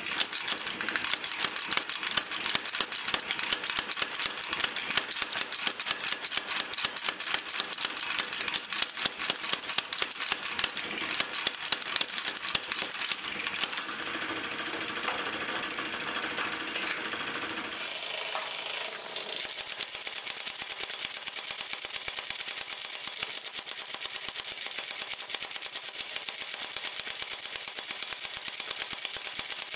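Power hammer pounding glowing steel in rapid, even blows, the forge-welding of a heavy wrought pull plate. The blows stop for several seconds past the middle, then start again.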